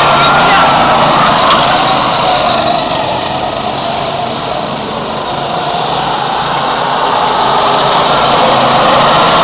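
Go-kart engines buzzing as karts drive past close by. The sound fades around the middle as they move off down the track, then grows louder again near the end as two more karts go by.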